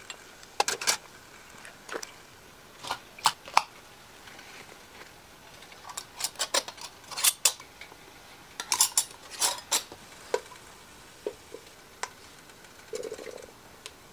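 Glass half-pint mason jars, metal canning lids and a jar lifter clinking and knocking in irregular clusters of sharp clicks as the jars are handled, lidded and set into a water bath canner pot.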